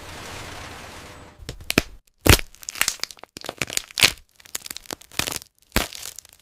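A steady hiss dies away in the first second or so, then a run of sharp, irregular cracks and crackles with short silent gaps between them.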